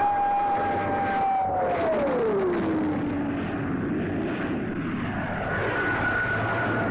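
Jet aircraft flying past. Its engine whine drops in pitch as it passes, about two seconds in, over steady engine noise. A second, higher whine comes in near the end.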